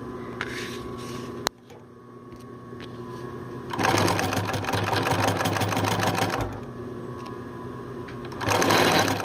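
1951 Singer 111W155 industrial walking-foot sewing machine: the motor hums steadily, a sharp click sounds about one and a half seconds in, then the machine runs and stitches for about two and a half seconds from around four seconds in, and again briefly near the end.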